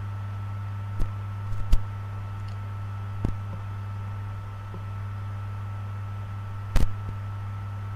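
Steady low electrical hum with faint steady higher tones, broken by a few short clicks or knocks, the loudest about 1.7 and 6.8 seconds in.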